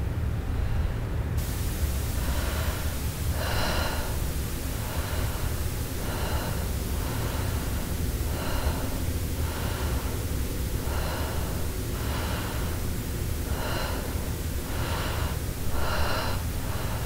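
Slow, even breathing, a breath about every second and a half, over a steady low hum; a hiss comes in about a second and a half in.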